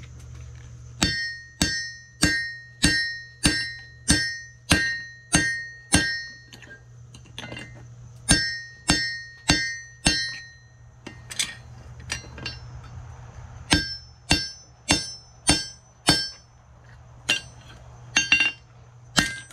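Blacksmith's hammer striking hot steel on an anvil, each blow followed by a bright ring, in runs of evenly spaced strikes about two a second with pauses between; the last few blows are lighter. A steady low hum runs underneath.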